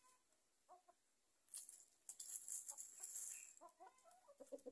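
Hens clucking softly: one short cluck early, then a run of clucks near the end. In between is a faint, high rustling and crackling noise.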